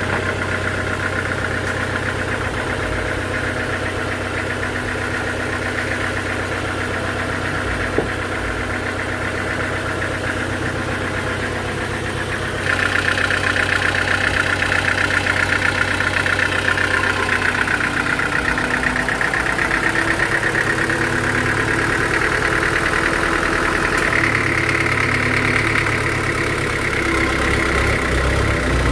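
Sawmill engine running steadily. About halfway through it gets suddenly louder and brighter, and then its pitch sags and rises slowly. A single click comes about a third of the way in.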